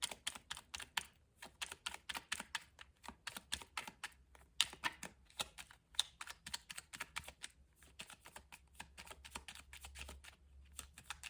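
A tarot deck being shuffled and handled: a quick, irregular run of light clicks and taps as the cards slap and slide against each other, several a second.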